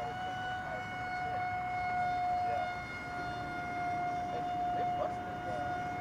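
Electric motor and propeller of a small foam-board FPV plane in flight, a steady whine at constant throttle.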